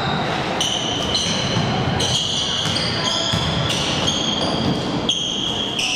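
Basketball being dribbled on a hardwood gym floor, with repeated short high-pitched squeaks of players' shoes on the court and voices of players and spectators in the gym.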